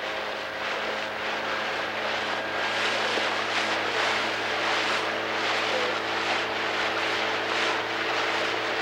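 Outboard motor of a coaching launch running steadily at speed, with a steady rushing noise over it.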